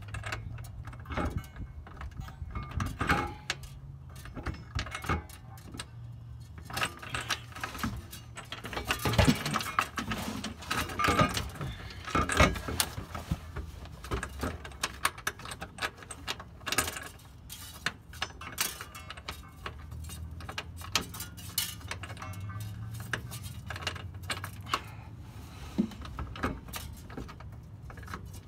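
Irregular metal clinks, clanks and rattles of a steel trailer hitch and its mounting hardware being shifted and pressed up against a car's underbody.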